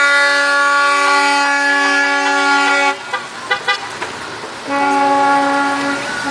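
Car horn sounding in long steady blasts. It is held for about three seconds, followed by a few short, quieter toots, then held again from about four and a half seconds in, with a brief break near the end.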